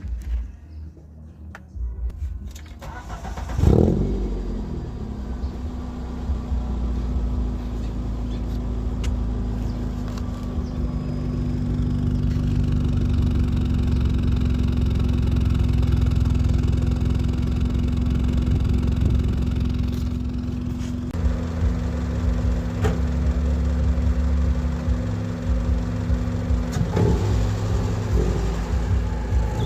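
Toyota Corolla 1.8 16-valve four-cylinder engine with an open cone air filter starting a few seconds in, then running steadily. It picks up and grows louder for several seconds in the middle before settling lower.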